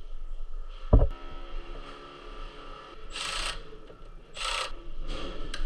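Pipe and tools being handled on a job site: a sharp knock about a second in that rings on briefly, then two short rasping strokes.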